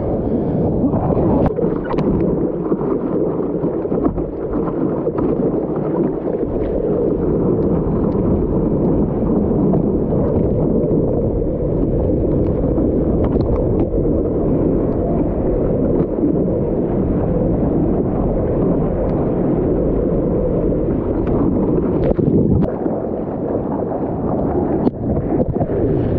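Whitewater rushing along a surfboard ridden through a breaking wave, heard on a board-mounted action camera with wind buffeting its microphone: a steady, dull rush with occasional sharp splashes.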